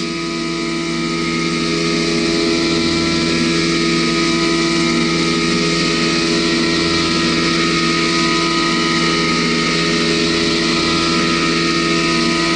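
Haas Mini Mill 2 CNC vertical mill cutting a 6 mm steel plate under flood coolant. There is a steady machining hum with several held tones, over the hiss of the coolant spray.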